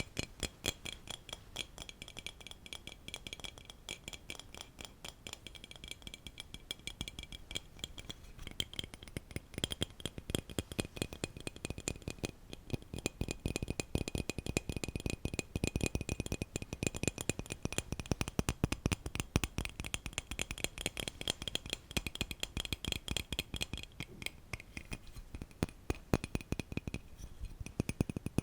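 Gentle rapid tapping on a hard object, many light clicks a second without pause, with a faint high ringing like glass.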